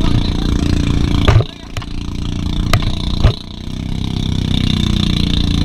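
Rushing wind and water on an action camera riding a fast-towed inflatable tube, with a steady engine-like drone underneath. Two heavy thumps, about a second in and again about three seconds in, as the tube bounces over the waves.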